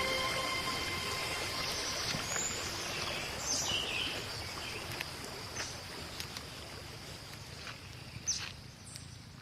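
Outdoor ambience: a steady hiss that slowly fades, with a few faint bird chirps and a sharp tick near the end.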